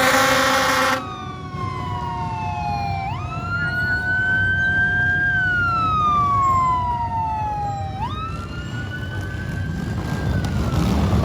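An emergency vehicle's horn blasts and cuts off about a second in. Its siren then wails in slow sweeps, rising and then falling over several seconds, twice.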